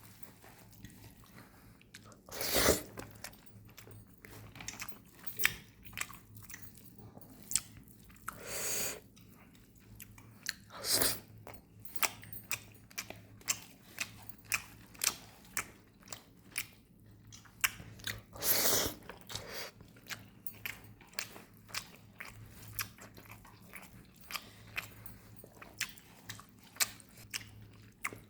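A person eating chicken curry with rice, close to the microphone: steady chewing with many small wet clicks, broken by several louder crunching bites.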